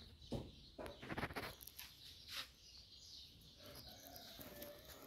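Quiet background with a few faint clicks and light knocks, most of them in the first two and a half seconds, and faint bird chirps.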